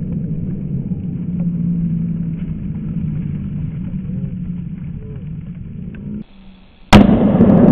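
Low rumble of a Tannerite explosion rolling through the woods and slowly fading. Near the end, after a brief quiet, a sharp loud bang, followed by loud rumbling.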